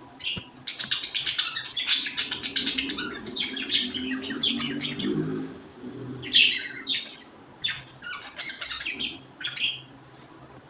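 Several birds chirping in quick, overlapping calls, busiest in the first half and thinning out toward the end.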